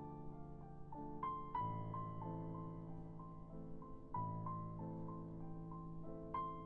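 Soft background piano music, a slow melody of held notes.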